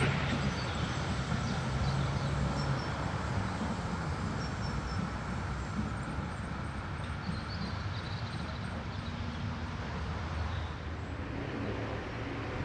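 Duewag GT10NC-DU tram running along the track, a low rumble and hum that slowly fades as it moves away.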